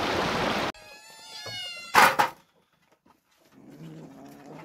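A cat meows once, a drawn-out call about a second long, followed by a single short, sharp knock.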